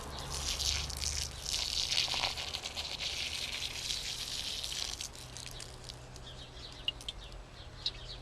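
Petrol contaminated with engine oil pouring out of a lawnmower fuel tank into a container. The stream runs steadily for about five seconds, then dwindles to a few drips.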